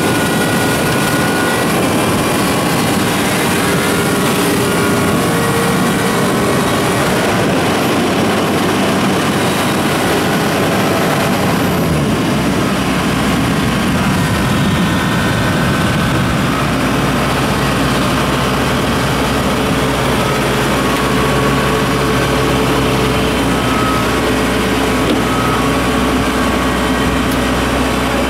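Kubota crawler combine harvester's diesel engine running steadily as the machine drives on its tracks. About twelve seconds in a deeper hum joins it, holding steady from about sixteen seconds.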